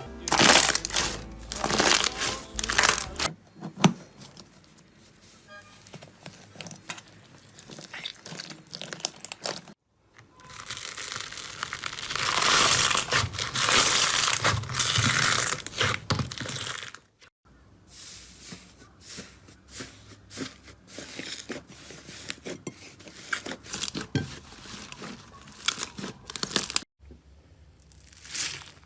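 Slime being handled in a run of short clips, making crackling, crunching and tearing sounds that change abruptly at each cut. The densest, loudest crackle comes from about 10 to 17 seconds in.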